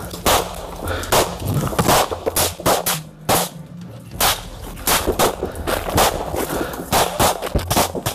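Small-arms fire during a close firefight: many sharp rifle shots in quick, irregular succession, some in short bursts, over a steady low hum.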